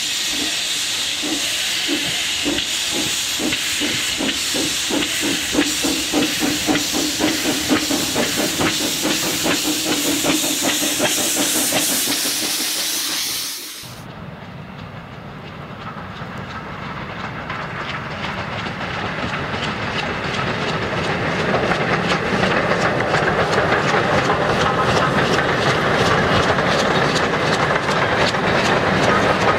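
Steam locomotive hissing loudly, a steady rush of escaping steam with a pulsing undertone, which cuts off suddenly about halfway through. Then a steam-hauled passenger train approaches, its running sound growing louder to the end.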